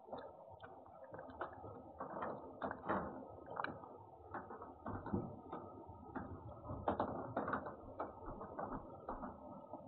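A cat eating food off a plate right by the microphone: irregular small clicks and knocks of chewing and the plate being nudged, loudest about three and seven seconds in.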